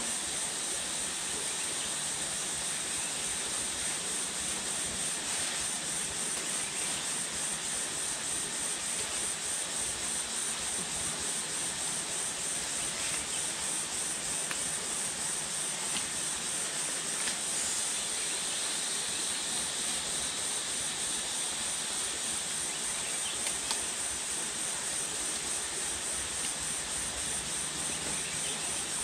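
Steady, high-pitched chorus of forest insects, a continuous rapidly pulsing drone, with a few faint clicks now and then.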